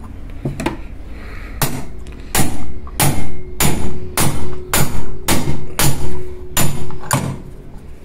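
Hammer blows on a steel plate laid over the rear end cover of a centrifugal water pump motor, tapping the cover down into the housing. From about two seconds in there is a steady series of strikes, about one every 0.6 s, and the plate rings faintly between them. The cover is going in.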